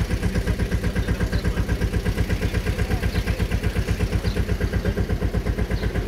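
A small river tour boat's engine running steadily under way, with a low, even, rapid throb.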